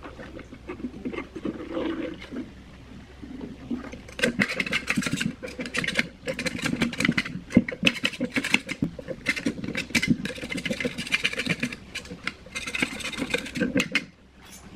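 A flat blade scraping old foam-surround and glue residue off a speaker's steel basket rim in rapid, repeated scratchy strokes. The scraping starts about four seconds in and stops shortly before the end, after quieter handling sounds.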